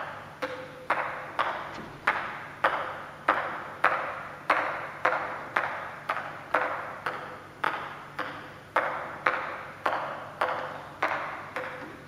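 Ping pong ball being bounced on a table tennis paddle in a steady rhythm, with sharp ticks nearly two a second as it is struck alternately with either face. Each hit echoes in a large hall.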